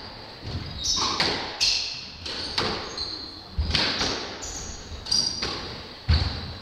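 Squash rally in an echoing court: a string of sharp, irregular strikes as the ball is hit and rebounds off the walls, with short high squeaks of the players' shoes on the hardwood floor.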